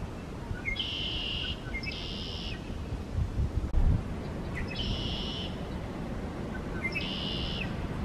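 Male red-winged blackbird singing its conk-la-ree song four times, each a few short lead-in notes and then a buzzy trill lasting under a second. A gust of wind rumbles on the microphone about halfway through.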